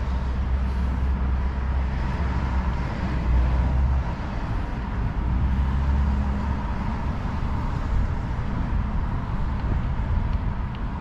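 Steady low engine rumble with a faint steady whine above it.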